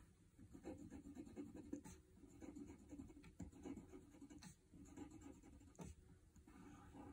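Crayon drawing on a sheet of paper: faint, irregular short scratchy strokes as a small paw print is drawn.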